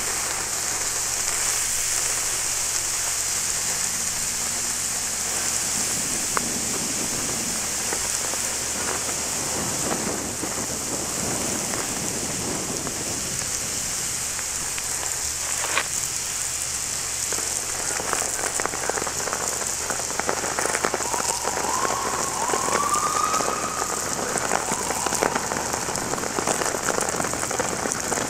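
Burning titanium powder hissing and crackling as FEM-12 SC liquid extinguishing agent is sprayed onto it, throwing off steam; the crackling grows denser in the second half.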